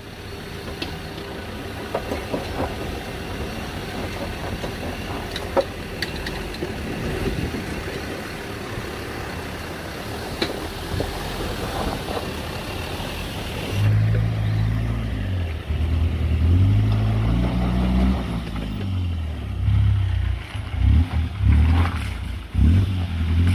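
Troller 4x4 off-roaders crawling a rocky dirt trail: an engine running at low revs with scattered clicks and knocks, then, about fourteen seconds in, a louder engine revving up and down repeatedly as a Troller works through a deep rut.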